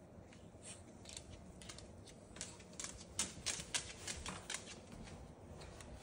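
Faint, irregular clicks and taps from a Moluccan cockatoo, which start about a second in and come thicker from the middle on.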